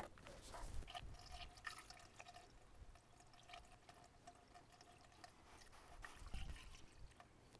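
Coolant pouring from a plastic jug through a funnel into a tractor's radiator filler: a faint trickle with a few small clicks.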